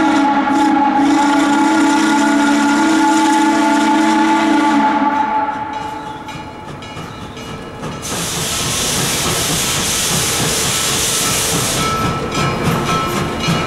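Baldwin 2-8-0 Consolidation steam locomotive No. 734 blowing one long chime whistle blast that stops about five seconds in. About eight seconds in, a loud steady hiss of steam starts and breaks into short pulses near the end as the engine moves toward the camera.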